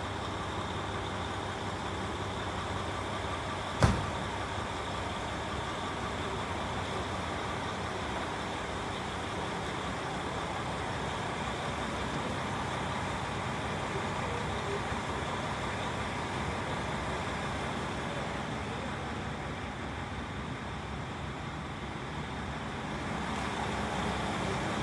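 Steady rumble of diesel railcars idling at a station platform, with one sharp knock about four seconds in.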